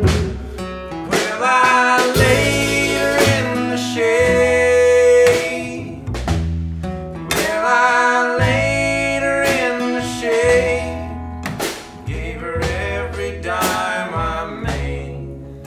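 Live folk band music: two voices singing in harmony over acoustic guitar, a hollow-body electric guitar and an upright bass.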